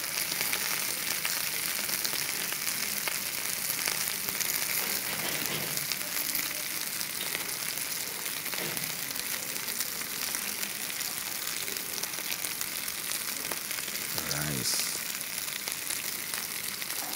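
Chicken frying in a pan: a steady crackling sizzle.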